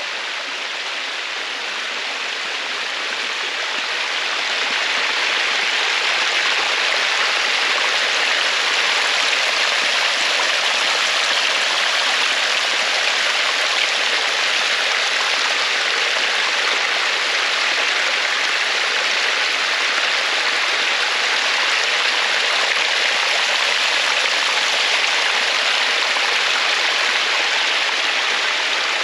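Rushing water of a stream or waterfall, a steady dense hiss that swells over the first few seconds and then holds level.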